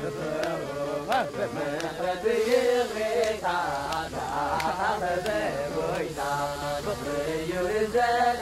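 Background music of chanted singing: a voice holding long notes and sliding between them.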